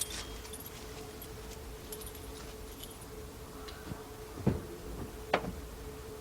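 Car keys jingling faintly for the first few seconds, then two short clicks about a second apart near the end, over a faint steady hum.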